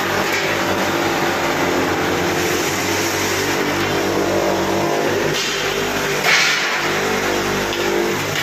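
Electric buffing machine running steadily, its motor humming, while a stainless steel utensil is pressed against the spinning polishing wheel. A louder hiss comes twice, about a third of the way in and again past the middle.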